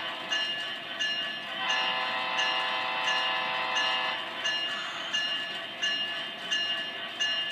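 The onboard sound system of an MTH HO-scale SD70ACE model diesel locomotive plays its air horn while the bell rings steadily, about one and a half strokes a second. One horn blast cuts off at the start, and a longer blast sounds from about a second and a half in until about four seconds in.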